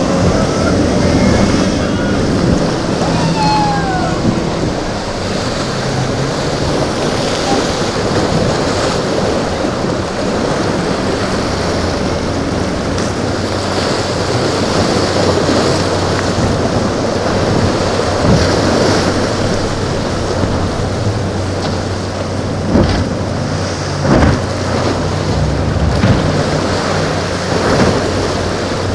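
Wind buffeting the microphone over surf and a boat's engine running, with a steady low engine drone setting in a little under halfway through and a few sharp thumps near the end.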